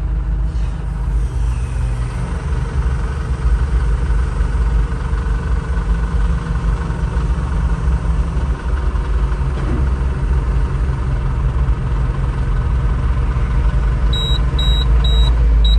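Telehandler's engine running steadily under load while lifting a heavy monster truck, heard from inside the cab. Near the end a short warning beep starts repeating about two and a half times a second as the load reaches the machine's maximum.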